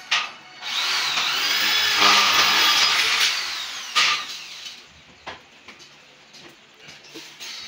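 Power drill run against the steel ceiling framing in one burst of about three seconds, its whine rising and falling. A sharp click comes just before it and another about four seconds in.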